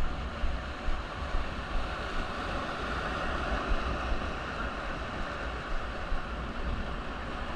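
River water rushing past a raft, a steady hiss, with wind buffeting the microphone in low gusts.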